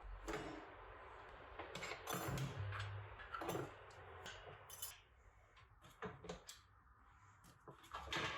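Kitchen clatter: dishes and utensils knocking and clinking, with a steady hiss underneath that fades out about five seconds in.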